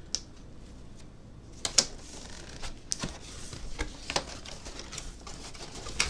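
Cardboard packaging being handled: a printed card insert and the box shifted in the hands, making scattered sharp clicks and taps over light paper-and-cardboard rustling.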